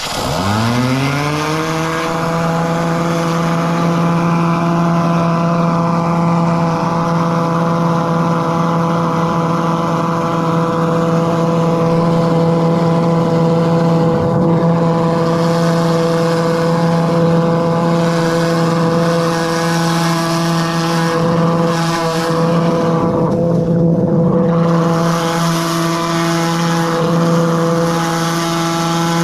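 High-pressure drain jetter running: its engine and pump rise in pitch as they come up to speed in the first second, then run steadily. The jetter is driving a root-cutter head through a sewer drain choked with tree roots.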